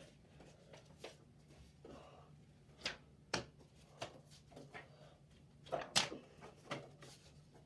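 Faint scattered taps and knocks, about seven in all and loudest about six seconds in, from a person moving about a small room, over a low steady hum.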